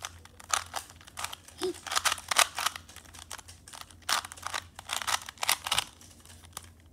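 Original Rubik's brand 3x3 plastic cube being turned by hand while it is solved: a quick, uneven run of clicks and clacks as the layers snap round, with short pauses between bursts of turns.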